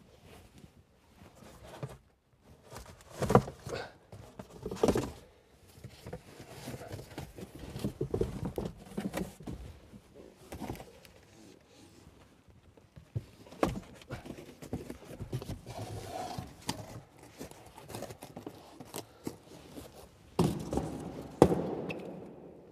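Cardboard packaging being handled and pulled off inside a car's cabin: irregular rustling and scraping with several sharp knocks and thumps, the loudest about three and five seconds in, near the middle and near the end.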